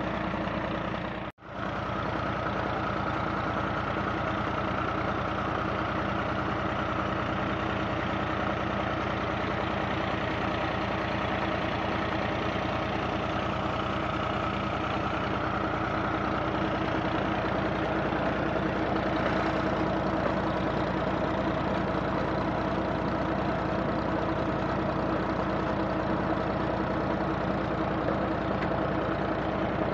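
Massey Ferguson tractor's diesel engine running steadily at a constant speed under load, turning a tube-well pump through its PTO shaft and a wooden pulley. The sound cuts out briefly about a second in.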